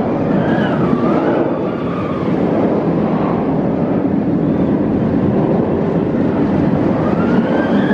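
Nemesis inverted steel roller coaster train running along its track: a loud, steady rumble, with a wavering whine rising and falling over it about a second in and again near the end.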